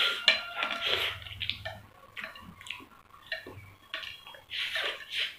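Slurping spicy noodles with chopsticks from a plate, in short irregular slurps, with chopsticks clicking and scraping on the plate.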